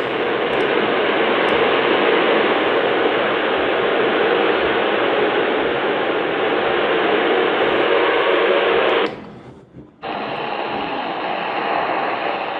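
Shortwave AM radio on 11780 kHz playing a weak signal buried in steady static hiss through the QODOSEN DX-286's speaker. The hiss cuts out abruptly about nine seconds in, drops to near silence for under a second, then comes back.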